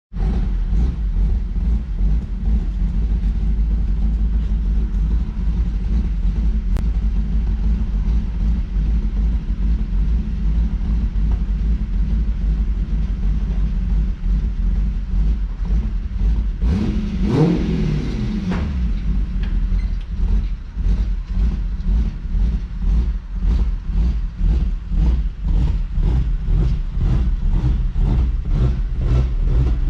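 1992 Lexus SC400's 1UZ-FE V8 idling with an uneven, pulsing lope. It is revved once briefly about halfway through, rising and falling in pitch. The owner puts the rough, mean-sounding idle down to a vacuum leak rather than a cam.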